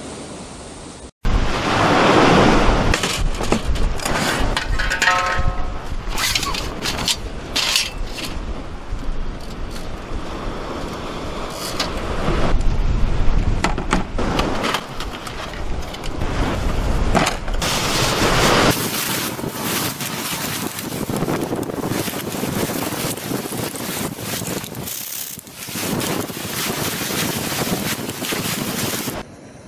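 Wind blowing across the microphone with surf from the sea, a steady rush that is heavy in the low range for most of the time and lighter in its last third. Occasional knocks are scattered through it.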